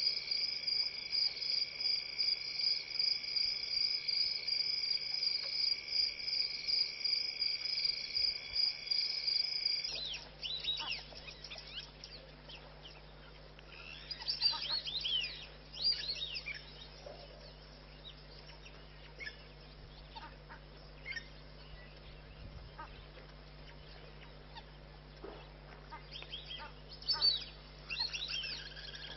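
A steady, pulsing trill of crickets, which cuts off about ten seconds in. After it come scattered bird chirps and short, quick falling whistled calls, with a louder cluster of calls near the end.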